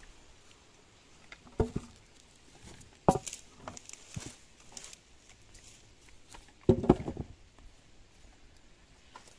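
A few separate sharp knocks and clatters over a faint background, the loudest a quick cluster about two-thirds of the way in; no chainsaw is running.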